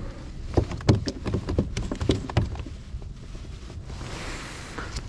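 A quick run of hollow knocks and thumps against a plastic fishing kayak as a freshly caught bass flops and is handled, about a dozen in the first two and a half seconds, then a soft rustle near the end.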